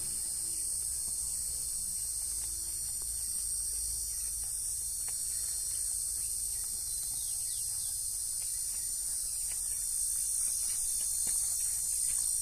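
Faint clicks and crunches of 32-day-old Rottweiler puppies chewing and tugging at a raw chicken carcass. A steady high-pitched drone and a low hum run underneath and are louder than the chewing.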